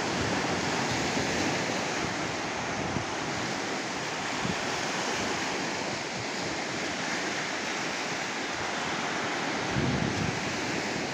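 Sea surf washing onto a beach in a steady, slowly swelling rush, with wind buffeting the microphone.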